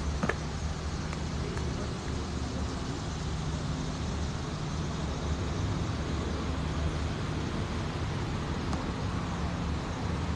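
Steady low outdoor rumble of distant road traffic, with a faint engine hum.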